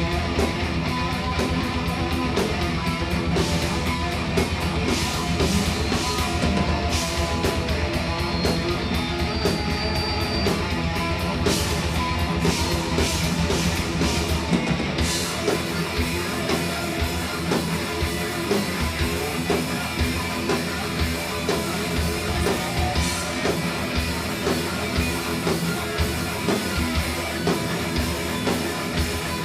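Thrash metal band playing live: distorted electric guitars over bass and a drum kit, loud and continuous with a driving beat.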